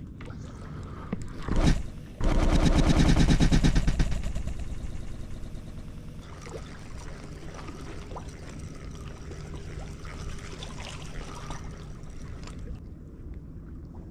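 Long surfcast from the rocks: a short whoosh of the rod, then about two seconds of loud, rapid buzzing as line pays off the spinning reel's spool, fading away. Later the handle of a spinning reel on the other rod is cranked to wind the line in.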